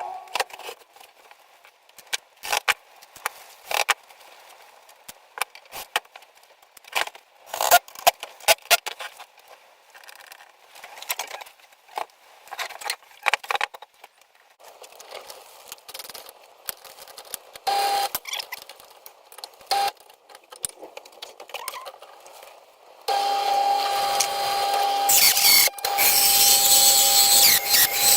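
Tools and parts handled in a string of clicks and knocks, then about 23 seconds in an electric power tool starts and runs steadily with a whine, likely cutting into the wood around the heater's exhaust opening.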